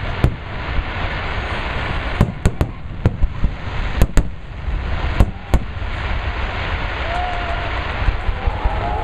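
Aerial firework shells bursting in a run of about nine sharp booms, several coming in quick succession around two to three seconds in and again near four and five seconds, over a continuous rushing background noise.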